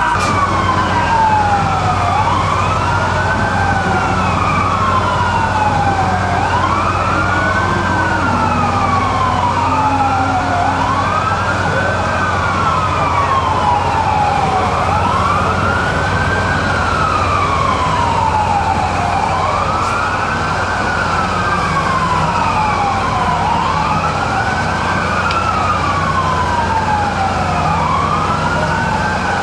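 Several fire truck sirens wailing together, overlapping and out of step, each climbing quickly and sliding back down every few seconds, over the steady low hum of idling fire apparatus.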